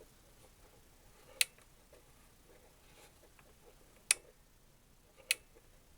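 Three sharp, separate clicks, a second or more apart, as screws are taken out of a record player's case and set down.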